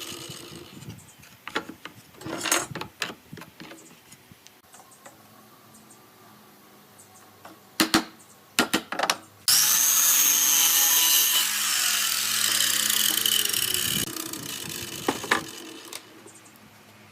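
Scattered knocks of wood being handled, then a few sharp knocks. About halfway through, a power tool starts abruptly and runs with a high whine for about four and a half seconds, then winds down with falling pitch.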